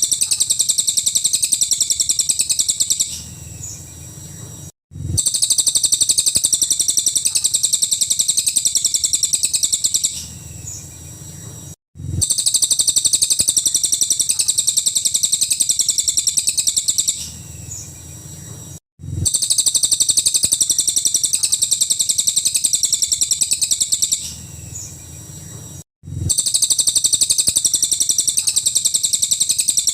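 Cililin bird singing its 'nembak' song: loud, rapid, high-pitched rattling trills about three seconds long, each followed by a softer stretch. The same phrase repeats about every seven seconds, with a brief cut to silence before each repeat, as a looped recording.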